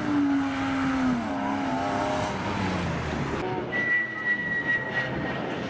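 BMW E36 Compact's engine revving and falling in pitch as the car slides through a wet corner, cutting off abruptly about three and a half seconds in. A steady high whistling tone follows, over faint background engine noise.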